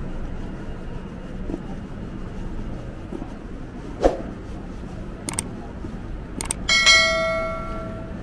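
Subscribe-button sound effect: two mouse clicks, then a notification bell ding that rings out and fades, laid over a steady murmur of city street ambience.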